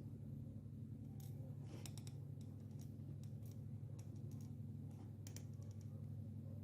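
A scattering of small, irregular clicks and taps over a steady low hum.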